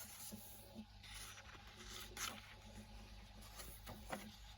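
Paper pages of a colouring book rustling and brushing as they are turned, a few soft scrapes, over a faint steady low hum from a turtle tank pump.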